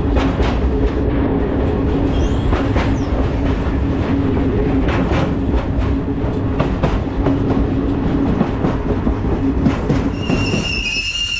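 A freight train wagon running on the rails, heard from on board: a steady rumble and hum with clacks in pairs as wheels cross rail joints. About ten seconds in a steady high-pitched squeal of the wheels sets in.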